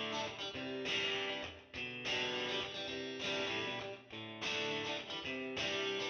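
Background music: a guitar playing chords, with a new chord sounding roughly every second.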